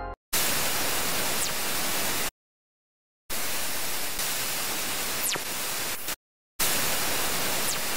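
Three bursts of radio static with abrupt starts and stops, each carrying a faint whistle that sweeps quickly down in pitch: a fast radio burst signal rendered as sound.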